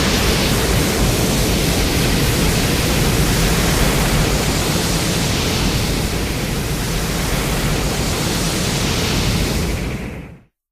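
A steady, loud rushing noise, a cartoon sound effect spread evenly from a deep rumble to a high hiss, fading out near the end.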